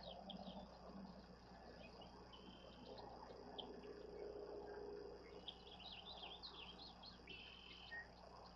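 Faint chorus of small birds chirping in the distance, many short quick notes overlapping, over a low steady hum.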